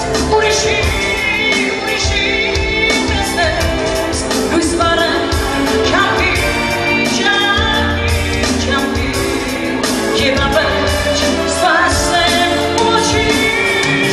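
A woman singing a song into a handheld microphone over backing music with a steady beat.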